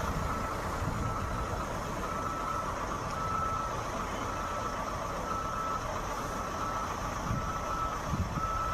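Electronic beeper sounding a short steady tone about once a second, over a continuous low rumble.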